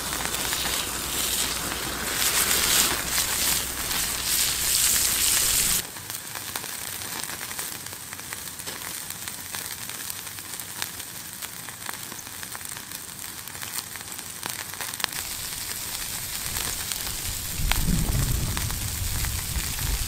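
Frenched lamb rib chops searing and sizzling on a hot slab over a wood fire. The sizzle is loud for about the first six seconds, then drops suddenly to a quieter sizzle with scattered crackles and pops. A low rumbling noise rises briefly near the end.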